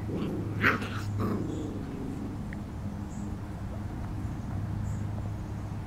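Doodle puppies play-wrestling, one giving two short high yips in the first second and a half, over a steady low hum.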